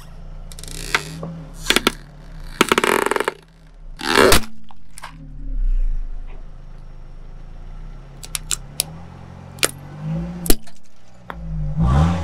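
A car tyre rolls onto a hollow hard plastic dome, which cracks and snaps in several bursts and then shatters with one loud crack about four seconds in. Scattered small cracks and clicks follow, with another crunch near the end. The car's engine runs underneath throughout.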